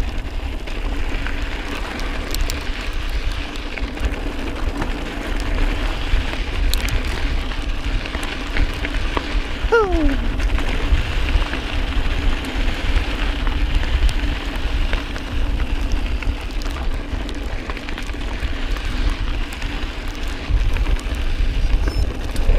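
Mountain bike rolling over a loose desert dirt-and-gravel trail: steady tyre crunch and small rattles, with low wind rumble on the microphone. About ten seconds in, a short squeal falls in pitch.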